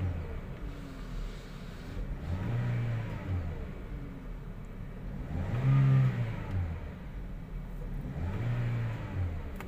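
Toyota Vios 1NR four-cylinder engine being revved three times, each rev rising and falling back to a steady idle. It now runs smoothly after one faulty ignition coil was replaced, curing a misfire.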